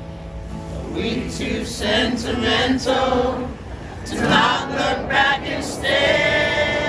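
A small crowd of people singing together with a lead male voice. They sing in short phrases, then settle into a long held note about six seconds in.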